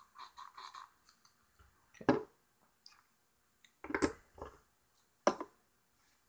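Handling noise from a small plastic pump-spray bottle of superglue accelerator being used and set down on a wooden desk. There is a sharp tap about two seconds in, a cluster of knocks around four seconds, and another sharp tap about five seconds in.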